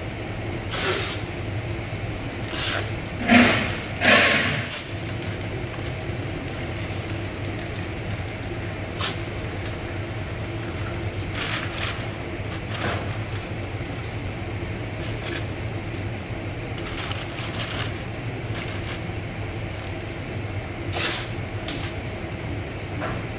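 Steady low hum of workshop ventilation or machinery, with scattered short rustling and scraping sounds of hands-on work, the loudest a few seconds in.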